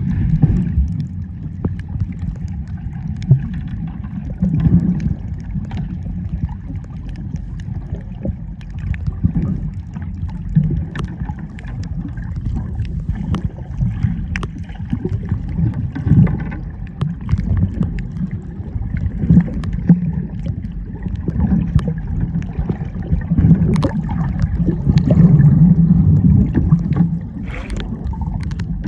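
Muffled, rumbling sea water sloshing around a camera held at or below the surface, with small crackles and knocks throughout and a few louder swells.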